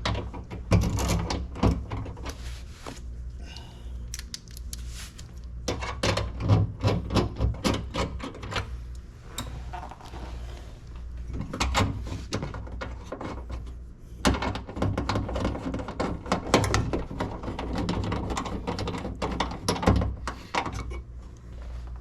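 Ratchet clicking in runs, with metal clinks and knocks, as the window regulator's mounting bolts are swapped for flanged ones and tightened inside a car door.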